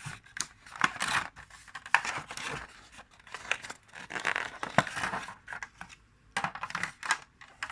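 Headset packaging being opened by hand: irregular rustling, scraping and tearing of box and wrapping, with sharp clicks and knocks.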